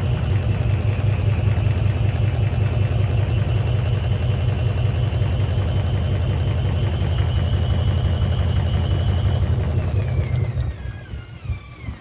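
Beko washing machine spinning at high speed with an unbalanced load and its door open: a steady motor whine over a heavy rumble, with the drum rapidly banging against the side panels. About ten seconds in the whine falls in pitch and the noise fades as the spin winds down.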